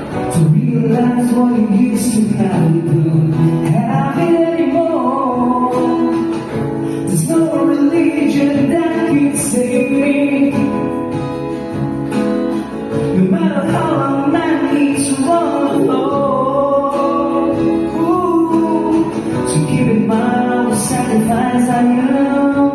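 A song sung over guitar accompaniment: a vocal cover performance, with the melody held and bent over steadily strummed or plucked chords.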